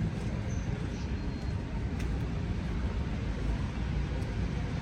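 Steady low rumble of city traffic, with a single short click about two seconds in.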